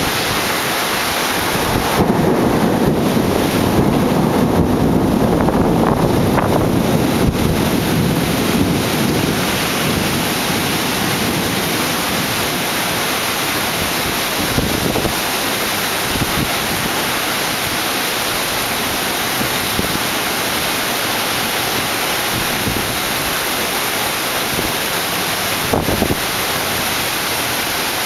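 Steady rush of heavy rain and wind in a thunderstorm. A louder low rumble swells for several seconds near the start.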